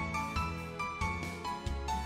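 Gentle background music: plucked melodic notes over low bass notes, changing every half second or so.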